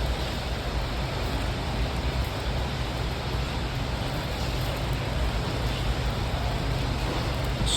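Steady wind buffeting the microphone: an even rushing noise with a low rumble. A brief high-pitched sound near the end.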